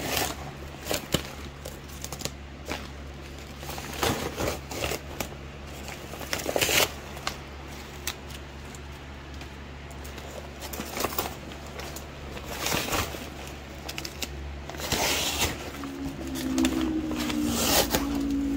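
Brown kraft-paper wrapping rustling and crinkling in irregular bursts as it is handled, its blue tape pulled off and the paper lifted away. A low steady hum comes in near the end.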